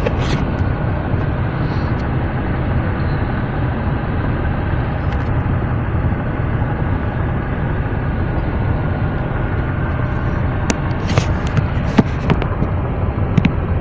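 Steady low road and engine rumble heard inside a moving car's cabin, with a few sharp clicks near the end.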